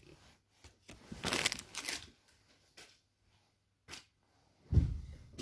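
Football trading cards being slid and shuffled in the hand, with a rustle about a second in and a click later. A low thump near the end is the loudest sound.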